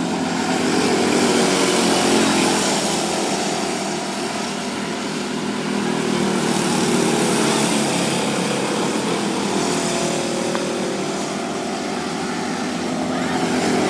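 Small engines of several micro-D race cars buzzing as they race round a small oval. The sound swells and eases a few times as cars pass close by.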